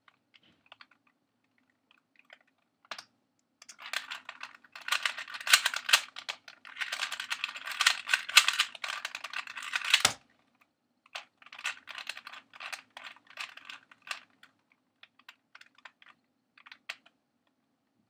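2x2 speed cube turned at full speed: a dense run of rapid plastic clicks lasting about six seconds, cut off by a single thump as the solve ends and the timer is stopped. After it come sparser, slower turning clicks.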